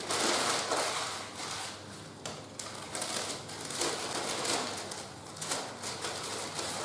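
Rustling and crinkling of handled packaging, with small irregular clicks and crackles.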